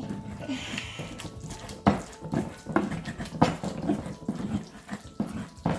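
Wooden pestle grinding wet spinach paste in a ridged earthenware asanka bowl: irregular scrapes and soft knocks of wood on clay, with faint squeaks, the loudest strokes about two seconds in and near the end.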